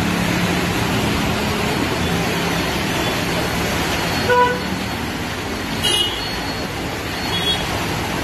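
Steady rushing street noise with a low engine hum, and a vehicle horn giving one short toot about four seconds in. A brief sharp sound with a high ring comes near six seconds.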